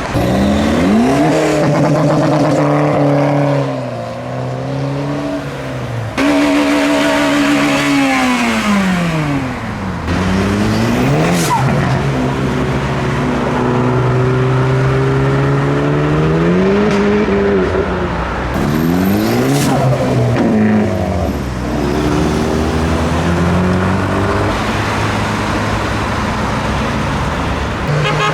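Car engines accelerating hard, one after another, each note climbing in pitch and dropping back sharply at the gear changes.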